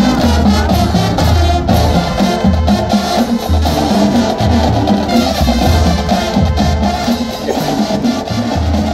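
Marching band playing in full: brass with sousaphones on the low notes over a drumline of snares and bass drums, coming in sharply at the start.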